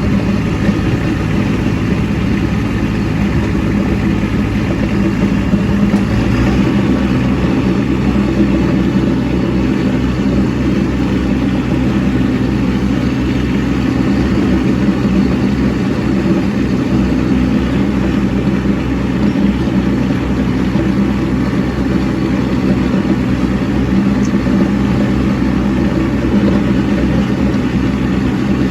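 Kubota B2601 compact tractor's three-cylinder diesel engine running steadily. Its note shifts about six seconds in.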